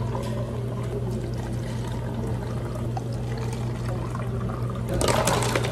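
Liquid pouring steadily into a cup or glass over a constant low machine hum. About five seconds in, louder clattering clicks start.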